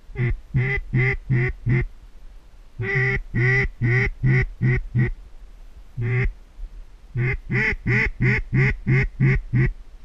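Mallard duck call blown in hen-style quack runs to bring flared ducks back: a short run of about five quacks, a longer run of about seven, a single quack, then a quicker run of about ten.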